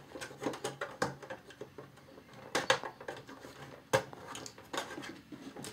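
Plastic clicks and scrapes as a small flathead screwdriver pries at the plastic panel clips of an Xbox 360 case, with two louder sharp clicks, one a little past halfway and one about four seconds in.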